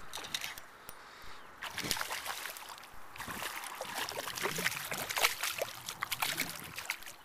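A hooked smallmouth bass thrashing at the water's surface, with quick, irregular splashes. The splashing starts in earnest about two seconds in and runs on until just before the end.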